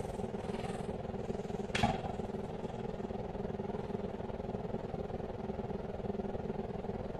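Steady low hum with one sharp clink about two seconds in, from the loaded barbell as the deadlift bar leaves the floor.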